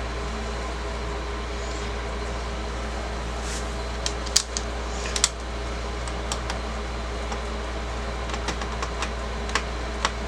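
Small sharp clicks and taps of a screwdriver and tiny screws against a laptop's plastic bottom case as the screws are tightened back in, starting about four seconds in, over a steady background hum.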